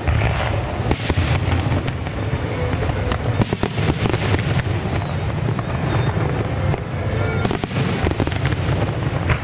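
Aerial fireworks display: a dense run of shell bursts and crackling over a steady low rumble, with music playing underneath.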